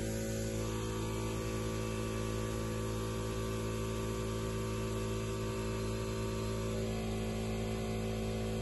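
Electric air compressor running with a steady hum, pumping up a car tire through an air hose.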